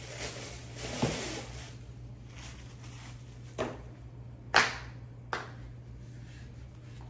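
Cloth rustling and a few sharp taps and knocks, the loudest about halfway through, as a person in a cotton shirt moves right up against the recording device and handles it; a low steady hum runs underneath.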